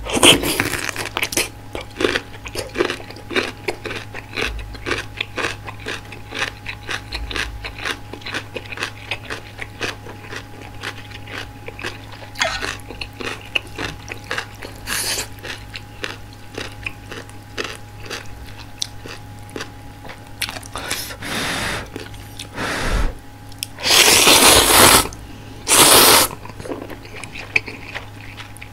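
Close-miked chewing of crunchy kimchi, a steady run of crisp crunches. Near the end come two loud slurps of ramen noodles.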